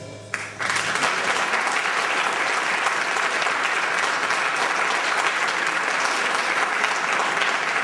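The wind band's final chord dies away, and about half a second in, a theatre audience breaks into steady applause.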